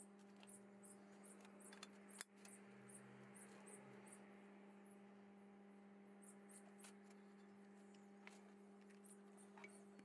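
Near silence: a steady low electrical hum with faint, high-pitched ticks repeating every fraction of a second, and one sharp click about two seconds in.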